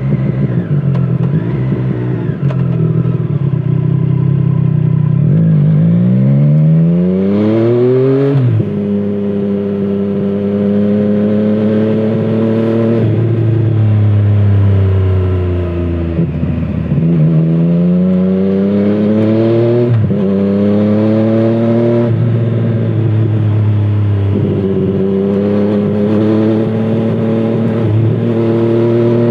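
Triumph Street Triple 765 RS inline three-cylinder engine through a Scorpion Serket aftermarket exhaust, ridden on the road. The engine pulls up through the revs to an upshift about 8 seconds in, rolls off in the middle, then accelerates again through another quick shift and climbs once more near the end.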